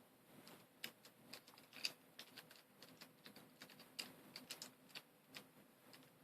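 Faint, irregular clicks and taps of small plastic V-Cube 7 pieces being handled and fitted together.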